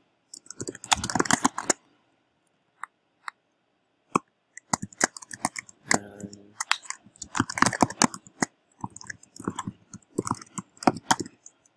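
Typing on a computer keyboard: quick runs of key clicks broken by short pauses, with only a few single clicks about two to four seconds in.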